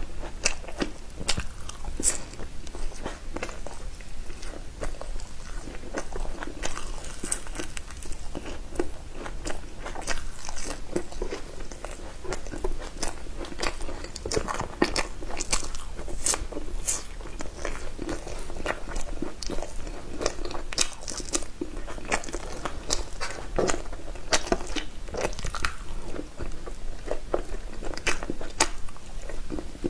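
A person biting and chewing food close to the microphone, with many sharp crunches and clicks scattered through the chewing.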